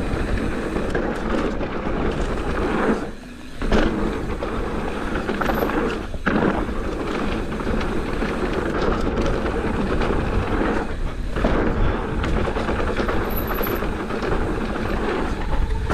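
Mountain bike riding over a dirt trail: wind buffeting the camera microphone, with the tyres rolling and the bike rattling and knocking over rough ground. The noise drops out briefly about three seconds in.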